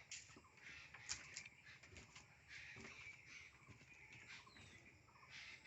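Faint birds chirping, with a few light clicks.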